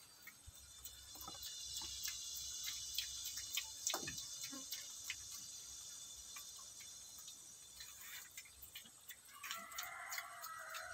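Piglets eating dry feed off a concrete floor: irregular crunching and clicking as they chew and nose the grain. A steady high-pitched buzz runs behind it, and a brief pitched call sounds near the end.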